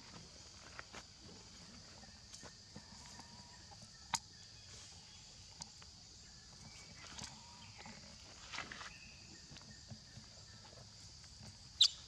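Baby macaques scuffling on dry leaves: rustling and scattered clicks, a few brief squeaks, then near the end one loud, short, high shriek from a baby pinned on its back. A steady high insect buzz runs underneath.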